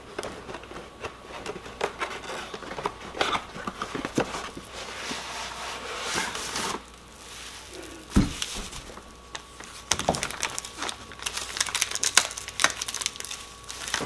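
Cardboard box being opened and handled, with plastic packaging crinkling, a single thump a little past eight seconds, and denser crinkling from about ten seconds in as the plastic wrap is pulled at.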